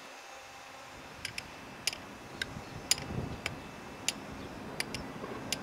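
Electric train pulling out of a station: a low running rumble that grows from about halfway, under a series of sharp, ringing metallic clicks a little over half a second apart, as its wheels pass over rail joints.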